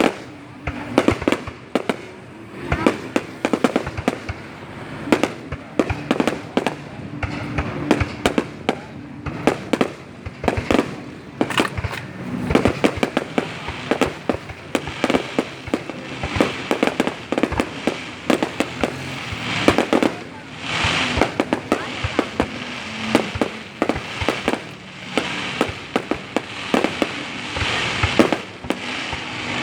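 Fireworks going off: a continuous run of sharp bangs and crackles, some single and some in quick clusters.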